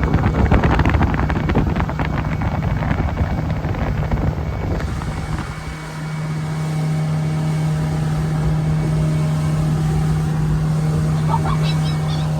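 Motorboat engine running steadily under way, with wind buffeting the microphone for the first five seconds or so. After that the wind drops away and the engine's steady hum is heard plainly.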